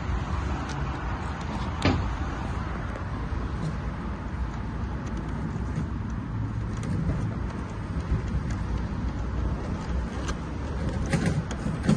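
Steady low outdoor rumble, with a sharp knock about two seconds in and a few clicks near the end as the portable steam cleaner is handled and tipped on its side.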